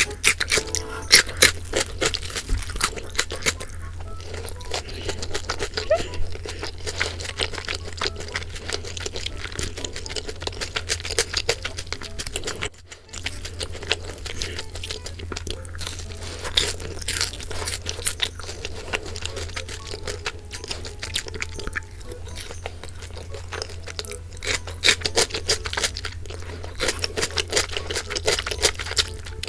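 Close-up crunching and chewing of seasoned boneless fried chicken, many crisp crackles in quick succession, with a short pause about halfway through.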